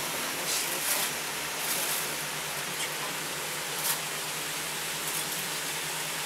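Steady rushing noise inside a moving cable-car gondola cabin, with a few brief sharper hissy noises about half a second, one second and four seconds in.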